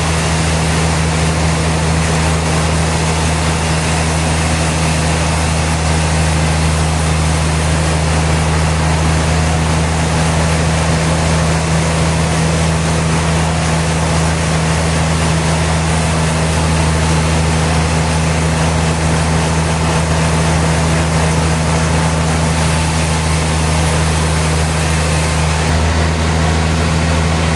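Sawmill machinery running steadily: a constant low engine or motor hum with a dense whirring, hissing noise over it, unchanging throughout.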